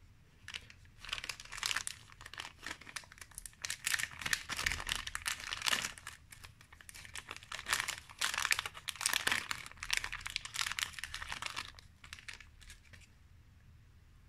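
Small clear plastic accessory bag crinkling in the hands as it is handled and opened, a dense crackle that comes in several spells with short pauses.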